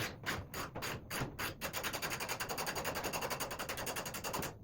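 Socket ratchet clicking as a bolt is turned out: a few spaced clicks, then a fast, even run of about a dozen clicks a second, stopping near the end.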